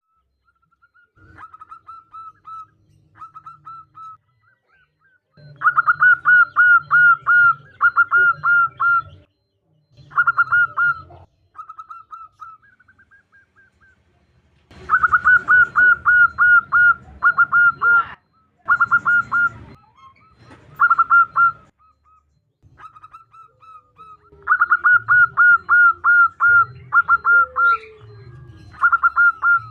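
Zebra dove (perkutut) calling in repeated phrases of quick staccato coos, each burst lasting a few seconds with short pauses between, which the uploader presents as a female calling to a male.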